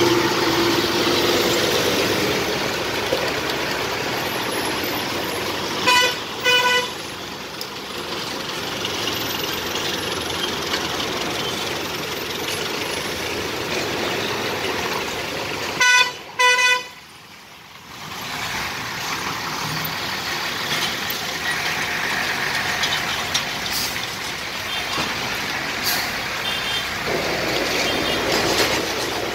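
Heavy road traffic of trucks and cars running and creeping past, with engines and tyres making a steady rumble. Vehicle horns give two short double toots, about 6 and 16 seconds in, which are the loudest sounds, and fainter toots near the end.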